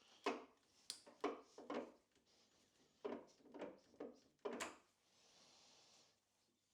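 An M6 tap being turned into a drilled hole, giving about eight short, sharp clicks and creaks in the first four and a half seconds as it cuts the thread, then a faint steady hiss.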